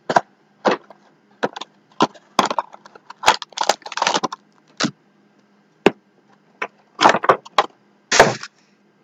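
A sealed box of Limited basketball trading cards being torn open by hand: a dozen or so irregular, sharp crackling rips and snaps of wrapper and cardboard.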